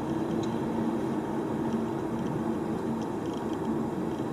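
Car interior noise while driving: a steady engine and road drone with a low hum. A few faint light ticks come through now and then, the rattle of the dash-mounted Olympus TG-870 camera's loose zoom lever vibrating.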